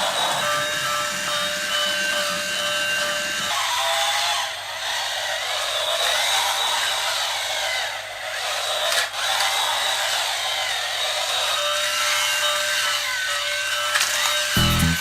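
Battery-powered toy locomotive's small electric motor and plastic gears whirring steadily as it runs along a plastic roller-coaster track. Music with a beat comes in near the end.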